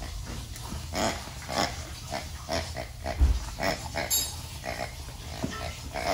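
French bulldog puppy snorting and snuffling with its face buried in a plush toy as it chews it, in short, irregular bursts several times a second. A low thump about three seconds in.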